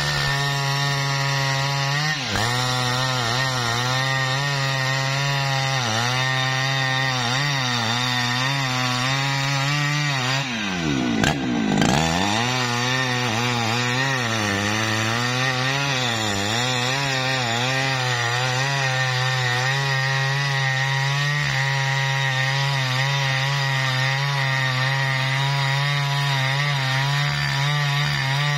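Jonsered two-stroke chainsaw running at full throttle while ripping a jackfruit log lengthwise. Its pitch sags and recovers a few times as the chain bogs in the cut, most deeply about eleven seconds in.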